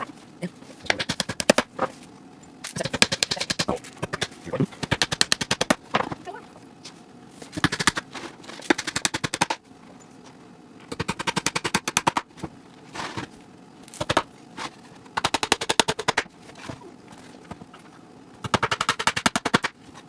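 Hand-tool work on a small wooden birdhouse: quick runs of sharp taps or clicks on the wood, in bursts of one to two seconds with short pauses between.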